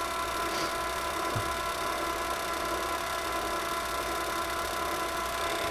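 Milling machine running steadily, its motor and drive giving a steady hum with a few held whining tones.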